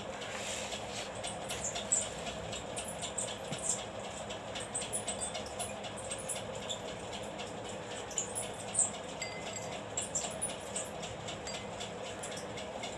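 A spoon, then a paintbrush, stirring thick blue poster paint and water in a glass bowl: small, irregular clicks and scrapes against the glass, over a faint steady background hum.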